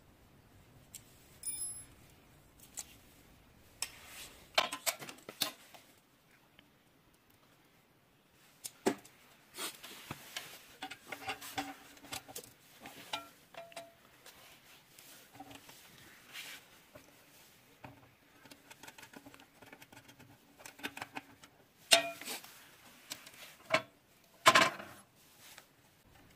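Steel rods and small fittings being handled and fitted by hand: scattered clicks, clinks and light knocks of metal and plastic parts, with a few louder knocks near the end.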